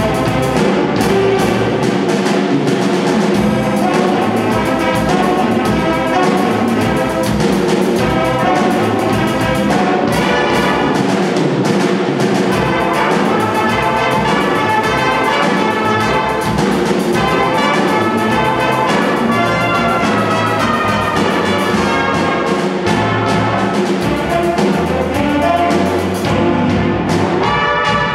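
A student jazz big band playing live: saxophones, trombones and trumpets over a drum kit, the full ensemble playing steadily throughout.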